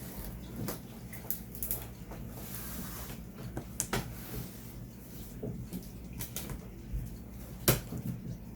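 Cardboard motherboard box and its packaging being handled: scattered light knocks and taps, a brief rustle about three seconds in, and a sharper knock near the end.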